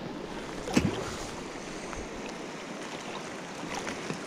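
Steady rush of river water flowing past the bank, with wind on the microphone. A single short thump about a second in.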